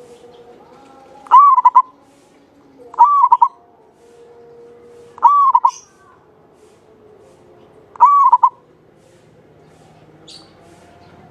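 Javanese zebra dove (perkutut) cooing: four short phrases of about half a second each, a couple of seconds apart, clear and fairly high-pitched.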